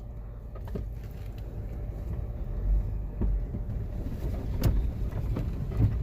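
A car driving slowly, heard from inside the cabin: a steady low engine and road rumble with a few sharp knocks and clunks from the car going over the rough, wet road.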